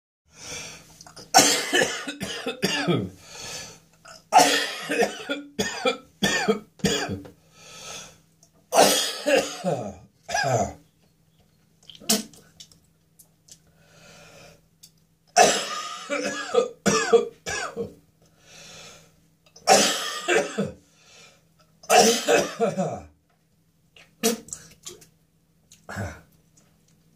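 A person coughing harshly in repeated fits, with throat clearing, the tickly cough of a throat infection. About eight bouts of several coughs each come with short pauses between them.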